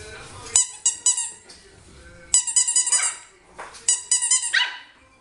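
A cat making short, high-pitched, bark-like yaps in three quick bursts of a few each, the last burst ending in a falling cry.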